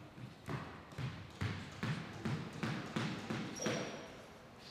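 A run of light thuds on a squash court's wooden floor, two or three a second, while the players walk back into position between rallies, with a brief high squeak about three and a half seconds in.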